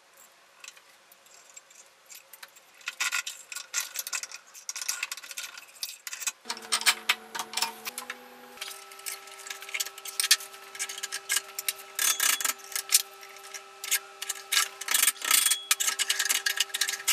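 Metal clicking and rattling from a 6-inch Dawn Tools bench vice as its main screw is wound into the slide by the sliding bar handle. The clicks are dense and irregular and start about three seconds in.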